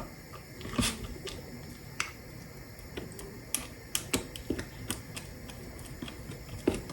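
Light clicks and taps at uneven intervals, a dozen or so, as a silicone brush is dipped into a small cup of honey and soy sauce marinade and brushed onto chicken legs.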